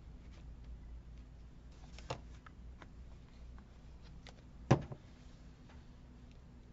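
Quiet handling of craft materials on a worktable: faint clicks and light taps, one small tick about two seconds in and a single sharp knock a little past halfway, over a low steady hum.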